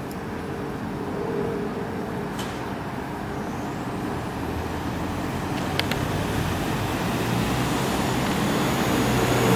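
Optare Solo single-deck bus approaching, its engine and road noise growing steadily louder, with a couple of brief clicks about six seconds in.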